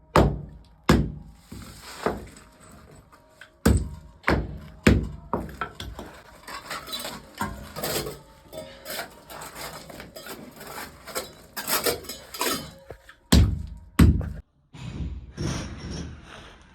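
Sharp knocks and thunks of CPVC pipe and fittings being handled and worked, with clattering and rustling between them. There are about six strong knocks in the first five seconds, busier clatter in the middle, and two more hard knocks near the end.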